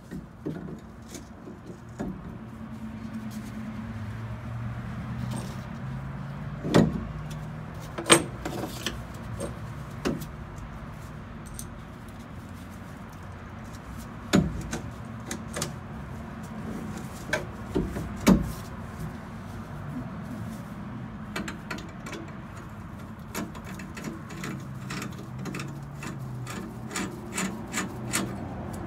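Scattered metallic clicks and knocks of parts being handled and fitted on a chrome steering column and its steel mount, with a quick run of small clicks near the end. A steady low hum runs underneath.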